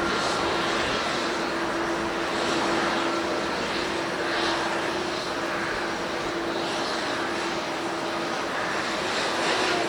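Jet airliner's engines running, a steady rush of noise with a steady hum running through it.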